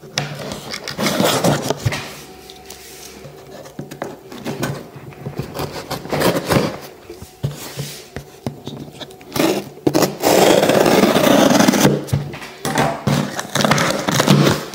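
Cardboard shipping box being handled and opened close up: irregular scraping, rustling and knocks of cardboard, with a loud rough scrape lasting about two seconds about ten seconds in.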